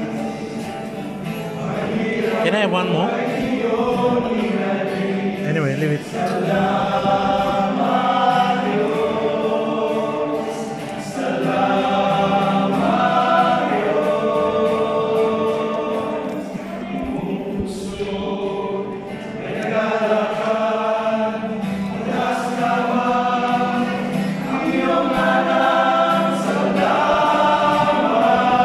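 Choir singing a Tagalog worship song with acoustic guitar accompaniment.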